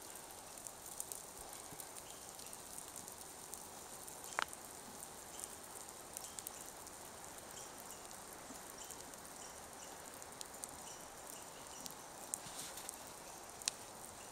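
Faint outdoor background hiss with scattered light ticks, and a sharper click about four seconds in and another near the end.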